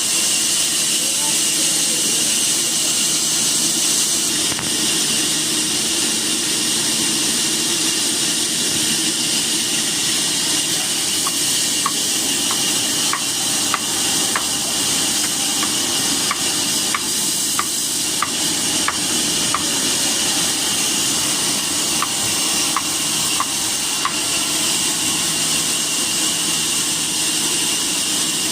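Sawmill saw cutting wood: a steady, loud hiss, with faint light ticks in the second half.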